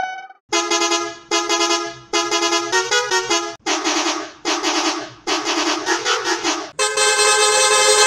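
Edited bus horn sound effect: a run of about eight short blasts at changing pitches, played like a tune. Just before the end it gives way to one long, dense blast of many bus horns layered together.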